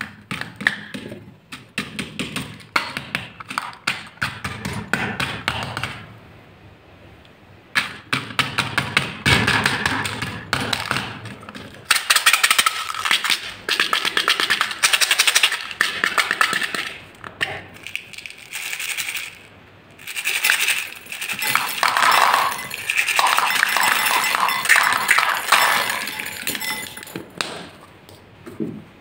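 Small beads rattling and clinking in small plastic cups and spilling onto a glass bowl. Scattered clicks over the first few seconds, then longer runs of dense rattling with short pauses.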